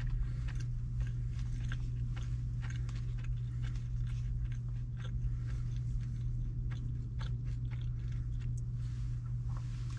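Eating inside a car cabin: a plastic fork clicking and scraping in a plastic takeout tray and the chewing of food, many short irregular clicks, over a steady low hum.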